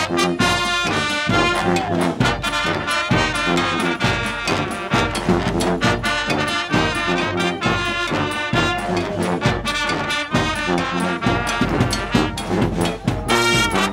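Brass street band playing a lively tune live: trombones and trumpets together over a steady drum beat.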